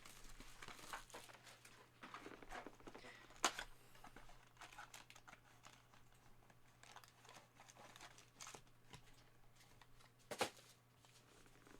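Faint crinkling and tearing of trading-card pack wrappers being opened and handled, with a few sharper ticks, the clearest about three and a half seconds in and again about ten seconds in.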